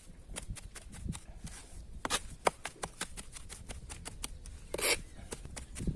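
Rapid small clicks and rustles of hands handling things, with a sharper scrape about two seconds in and a longer one just before five seconds.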